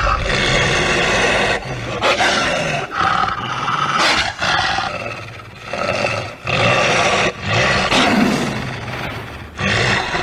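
Animatronic werewolf Halloween prop playing its recorded growls and roars: a run of rough, loud roars, each one to two seconds long, with short breaks between them.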